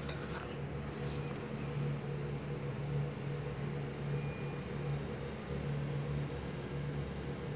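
Steady low mechanical hum of a running machine.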